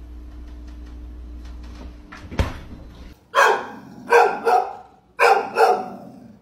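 A dog barking about five times in quick succession, starting about three seconds in. Before that there is a steady low hum.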